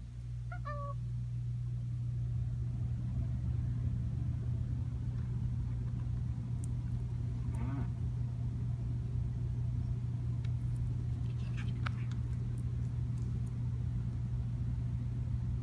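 A steady low hum, like an electric motor or transformer running, that sets in at the start. There is a brief squeak about half a second in and a few faint taps.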